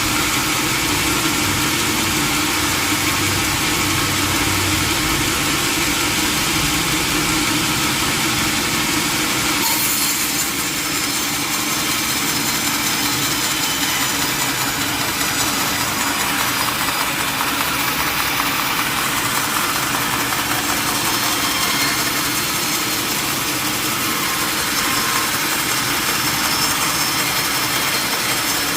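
Sawmill saw and its engine running steadily while cutting a mahogany log, a continuous dense mechanical noise with a slight change about ten seconds in.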